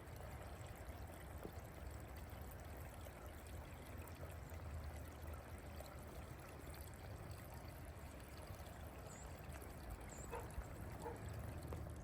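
Faint, steady trickle of running water, as from ground soaked by heavy rain.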